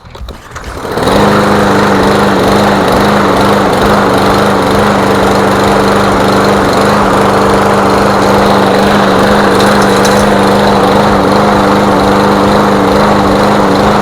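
Snapper walk-behind lawn mower's Briggs & Stratton engine starting at once and running steadily at full throttle, stopping right at the end. It runs a little rough, which the owner puts down to year-old gas with contaminants in it.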